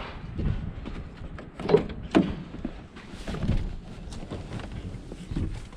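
Knocks and clanks over a constant low rumble, with two sharp impacts about a second and a half and two seconds in.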